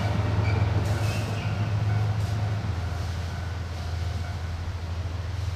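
Diesel train engine running steadily with a low hum, getting a little quieter after a couple of seconds.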